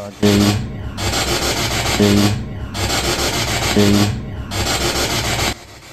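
P-SB7 spirit box sweeping radio frequencies: four loud bursts of static with short breaks between them, each opening with a brief buzzy pitched fragment. The investigators take it for a demonic voice whispering "we are".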